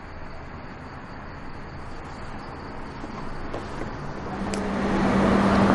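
Road traffic noise, a steady rush that grows louder through the second half, with a steady low hum joining about four seconds in.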